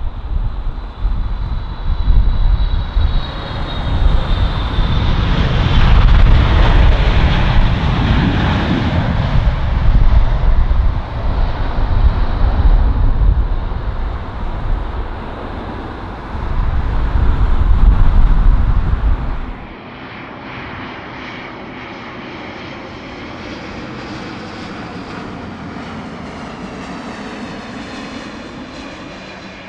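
Boeing 777 twin jet engines at takeoff power, a loud low roar that rises and falls. About twenty seconds in it cuts to the quieter, steady hum and high whine of an Airbus A350-1000's Rolls-Royce Trent XWB engines on final approach.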